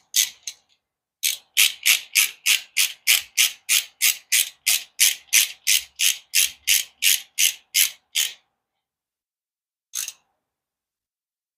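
Hand ratchet wrench clicking as it is worked on an engine bolt: a long even run of sharp clicks, about three or four a second, then a single click near the end.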